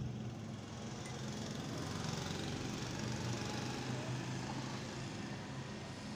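Steady low mechanical hum of a running motor, even in level throughout.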